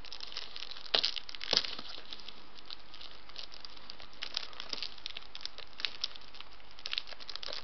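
Plastic packaging on a DVD box set crinkling and crackling as it is picked and worked open by hand. There are two sharper clicks about a second and a second and a half in.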